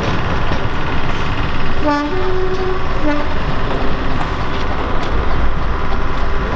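A Class 121 'Bubble Car' diesel railcar running under power as it pulls away, with a two-tone train horn sounding about two seconds in: a short low note, a longer higher note, then a short low note again.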